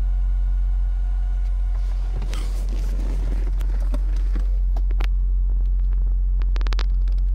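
NVX VCW122 subwoofer box with Earthquake Sounds Slaps M-12 passive radiators playing a steady, loud 45 Hz test tone at about 5,500 watts. Sharp clicks and ticks come in from about the middle onward, which the builder puts down to the passive radiators travelling past their mechanical limit rather than to the subwoofers' voice coils ticking.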